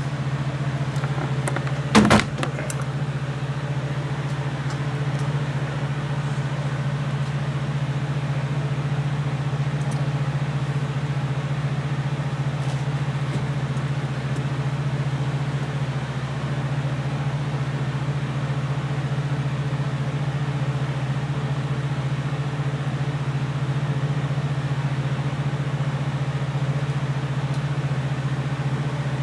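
Steady low machine hum with no change in level, broken once by a sharp knock about two seconds in.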